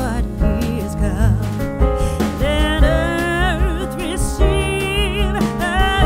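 A song playing: a singing voice with wavering vibrato over bass and a steady beat.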